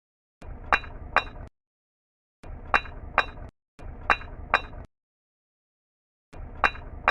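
Bricks falling and clinking against each other, as a short clip repeated about four times. Each time there are two sharp, ringing clacks about half a second apart, and each burst starts and cuts off abruptly with dead silence between.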